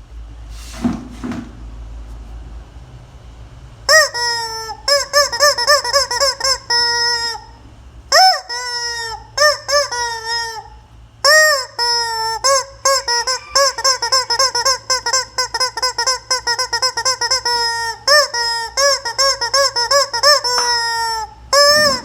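Rubber squeaky chicken toy squeezed over and over, giving rapid runs of pitched, honking squeaks. The squeaking starts about four seconds in and comes in long runs with short breaks between them.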